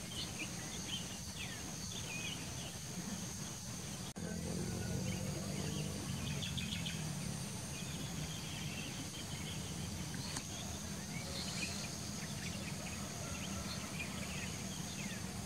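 Scattered bird chirps over a steady high insect buzz, with a low steady rumble underneath that grows a little louder between about four and seven seconds in.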